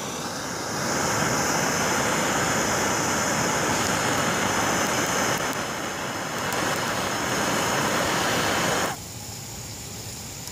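Handheld gas torch flame running with a steady hiss, heating a beaker of bromine and sulfur to start the reaction; it cuts off suddenly about nine seconds in.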